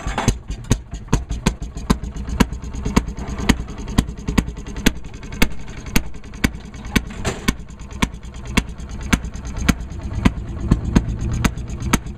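Small engine of a two-man railroad inspection car (speeder) idling slowly, firing in sharp, regular pops about three times a second over a low rumble.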